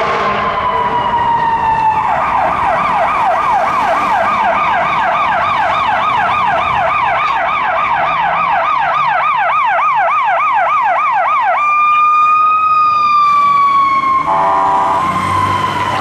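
Fire engine siren on a responding rig. It gives a falling wail, then a fast yelp sweeping up and down about three times a second for nearly ten seconds, then a long held tone that rises slightly and falls away near the end.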